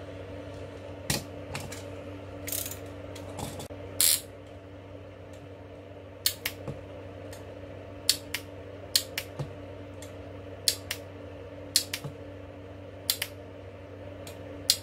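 Test firings of a homemade battery spot welder switched by a motorcycle magnetic starter relay: a string of sharp clicks and snaps, many in quick pairs, with a few short crackling bursts in the first few seconds. The welder is not welding properly; its thin wires cannot carry the current.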